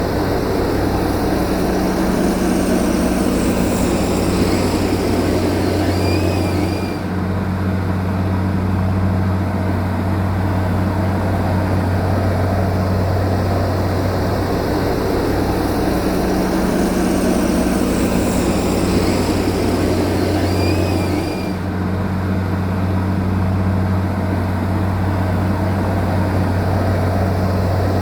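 Steady drone of a heavy diesel engine on earth-moving machinery, with a deep hum throughout. The sound repeats itself about every fourteen seconds, dipping briefly twice, as if looped.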